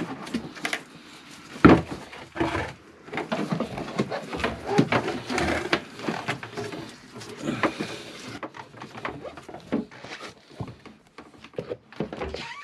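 Handling noises: irregular knocks, clicks and rustling as gloved hands work plastic tubing and pump fittings in a boat's bilge, with one sharp knock about two seconds in.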